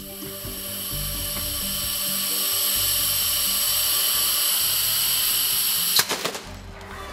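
Pneumatic vacuum gripper on a robotic de-palletizer hissing steadily as its suction cups hold the load. It builds over the first couple of seconds, then cuts off suddenly with a sharp click about six seconds in, as the vacuum is released and the load is set down.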